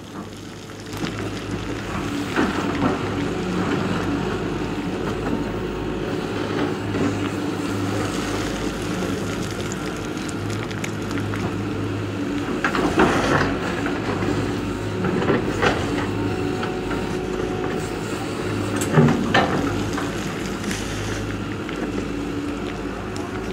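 Tracked hydraulic excavator's diesel engine running steadily while digging trench spoil, with a few sharp clanks and scrapes of the bucket on rock and gravel, the loudest about three-quarters of the way through.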